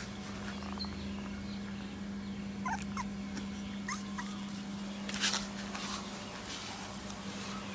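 Bangkaew puppy giving a few short, high whimpering squeaks, about three and four seconds in, with brief rustles in the grass, the loudest about five seconds in. A steady low hum runs underneath.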